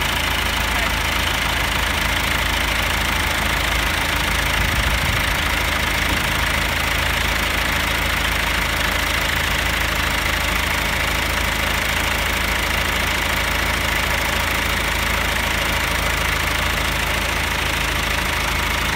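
John Deere 2555 tractor's diesel engine running steadily, holding an even level throughout.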